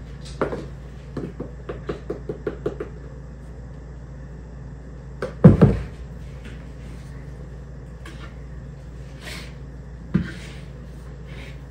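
A run of light taps and clicks as flour is shaken from a plastic container into a mixing bowl, then a heavy thump about five and a half seconds in as the container is set down on the table. A single knock near the end as a dough whisk starts stirring the dough in the bowl.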